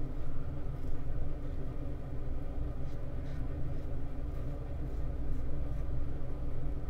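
Steady low rumble and hum, with faint short scraping strokes of a double-edge safety razor cutting lathered stubble.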